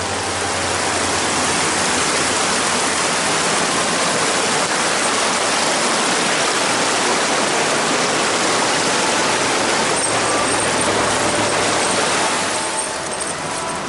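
Steady rushing of a stream's water, an even hiss that swells slightly about a second in and eases off near the end.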